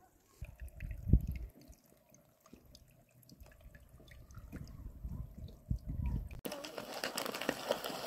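A small mountain spring trickling and dripping over rock, with low rumbles on the microphone, the strongest about a second in. About six seconds in the sound cuts suddenly to a louder, steady hiss.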